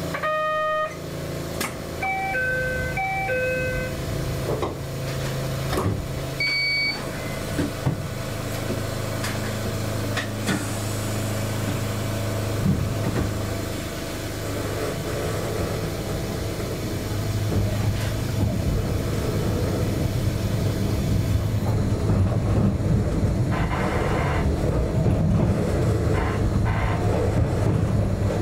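Narrow-gauge electric train heard from the driver's cab: a few short electronic chime tones near the start and one brief higher tone a few seconds later while it stands. Then a low motor hum builds as it pulls away, with wheel-and-rail running noise growing through the second half.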